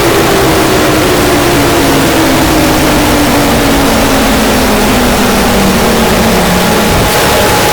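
Mock emergency-alert alarm audio: loud, harsh static with a low tone sliding slowly downward throughout, and a faint higher tone near the end.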